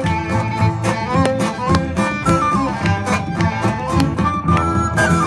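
Live folk band playing a lively fiddle tune: the fiddle carries the melody over acoustic guitars, upright bass and a steady bodhran beat.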